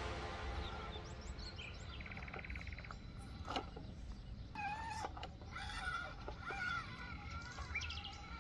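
Birds chirping and calling: short high chirps, a rapid trill, and several curved whistled calls from about halfway through. A faint steady low rumble of outdoor background noise runs under them.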